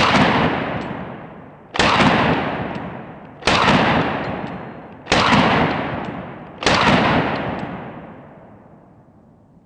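Five single shots from a Calico M950 9mm pistol, spaced about a second and a half apart, each followed by a long fading echo.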